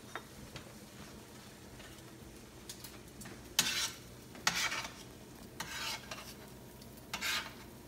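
A wooden spoon and kitchen tongs stirring and tossing spaghetti in a stainless steel sauté pan, heard as four short scraping strokes against the pan in the second half, over a low steady hum.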